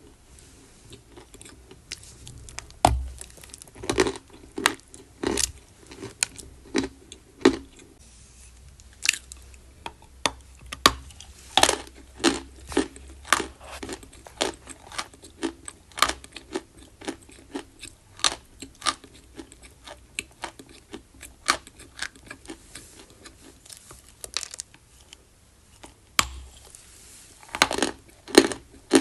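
Close-miked crunching of edible chalk: sharp, irregular bites and chews, about one or two a second, with a short lull before a quick cluster near the end.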